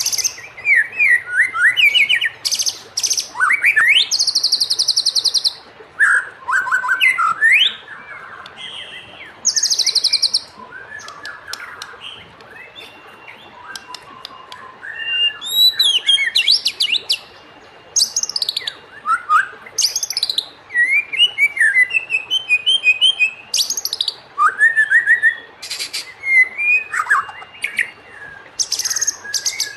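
White-rumped shama (murai batu) singing a fast, varied song: rising and falling whistled phrases broken up by harsh, buzzy rattling notes, with only short pauses between phrases.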